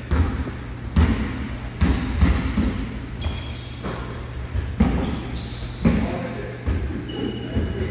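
Basketballs bouncing on a hardwood gym floor, sharp thumps about once a second that ring in the hall. Short high squeaks of sneakers on the court come twice, about two seconds and five seconds in.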